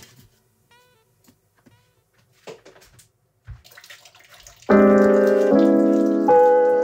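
A few faint handling noises, then background piano music starts suddenly about two-thirds of the way in, a series of sustained chords.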